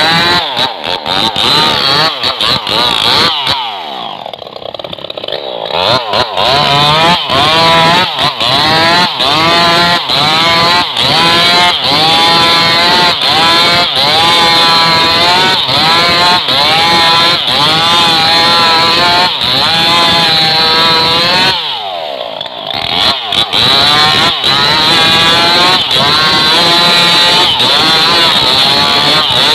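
Stihl MS 381 two-stroke chainsaw cutting into a tree trunk at high revs, its pitch wavering as the chain loads up in the wood. Twice it drops briefly toward idle, about four seconds in and again about twenty-two seconds in, then revs back up.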